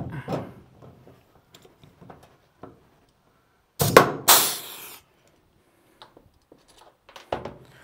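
Air-powered pop rivet gun setting an aluminium pop rivet into stainless sheet once, about four seconds in: a sharp crack as the rivet is pulled, then a short hiss of air.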